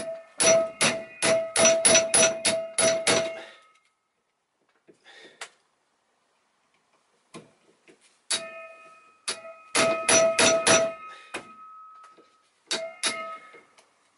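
Hammer blows ringing on a steel driver set against a seized bolt of a Toyota throttle body's idle speed control valve, trying to break it loose. Two quick runs of strikes, about three a second, with a pause of several seconds between them and a couple more near the end.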